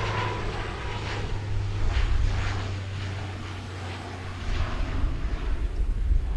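Regional airliner engines heard at an airport, a steady low hum with a thin whine that fades in the first second or so, joined by a deeper rumble about four and a half seconds in.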